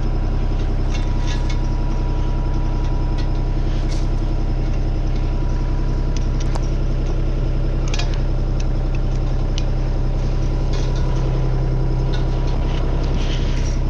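Mini excavator's diesel engine running at a steady speed. A few sharp metallic clinks are heard over it.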